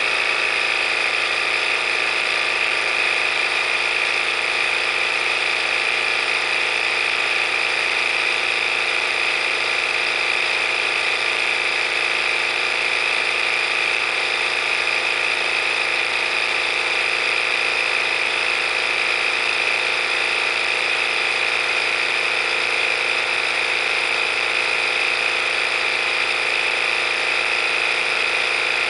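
Visible V8 model engine test rig running steadily during the run-in of a new crankshaft: an even mechanical whir with a steady high whine and a light rattle of the spinning rotating assembly.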